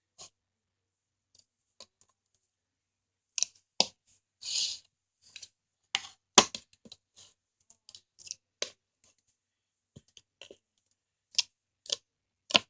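Homemade glue-and-borax slime being squished and stretched by hand, giving irregular sharp pops and clicks as air pockets burst, with one longer squelch about four and a half seconds in.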